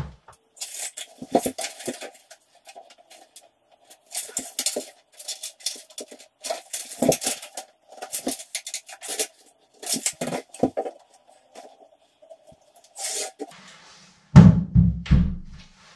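Irregular clicks, clinks and knocks of hand tools and a level being handled against a wall, with a couple of heavier thumps near the end.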